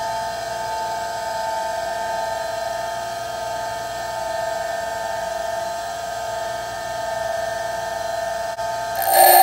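Bench grinder running freely with a steady hum. About nine seconds in, a twist drill bit is touched to the wheel and a much louder, harsh grinding starts as its cutting edge is sharpened.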